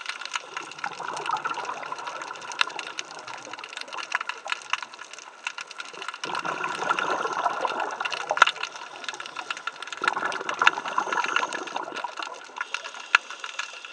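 Underwater sound: a constant crackle of small sharp clicks, with two spells of rushing, bubbling noise from a scuba diver's exhalation through the regulator, about six and ten seconds in.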